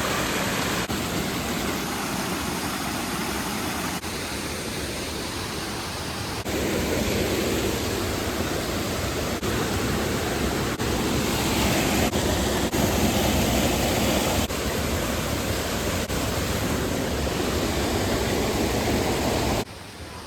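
Steady rushing of creek water, an even wash of noise with no distinct events.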